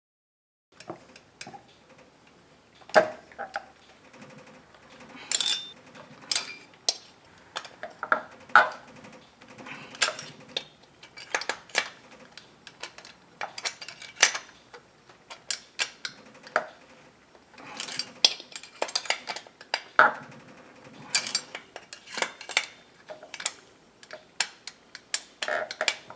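Small metal chainsaw parts and hand tools clinking, tapping and knocking at irregular intervals during bench work on the saw's top end, starting about a second in.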